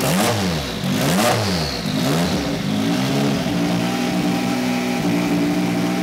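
Turbocharged race car engine being blipped: the revs rise and fall several times in quick succession, then settle to a steady idle from about halfway through.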